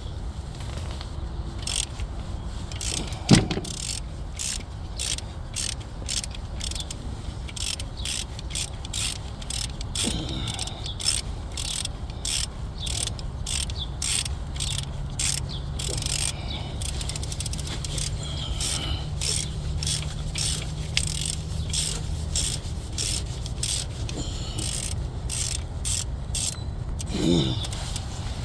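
Socket ratchet clicking rapidly as the second alternator mounting bolt is backed out of a 2015 Chevy Suburban's 5.3 engine bracket. Two short falling squeaks break in, the louder one about three seconds in and another near the end.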